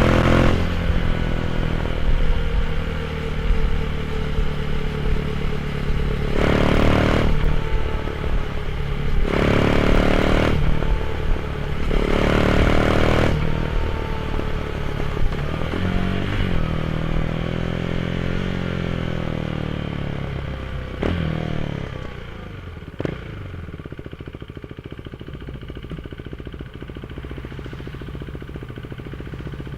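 Motorcycle engine through a GPR aftermarket exhaust, revved up several times with the pitch rising and falling, then dropping back to a quieter steady idle about two-thirds of the way through.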